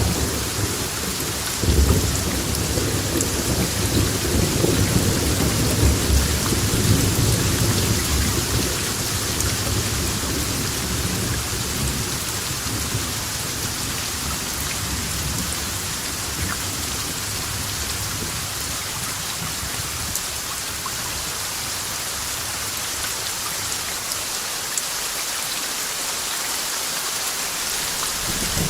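Steady rain hissing, with a low, rolling rumble of thunder that swells about two seconds in and dies away by the middle, leaving the rain alone.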